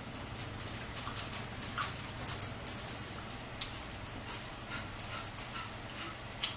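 Close-up eating sounds: wet chewing and mouth smacks, a quick run of crackly clicks over the first few seconds as a french fry is eaten. Later come scattered single clicks and rustles as a paper napkin is worked between the fingers.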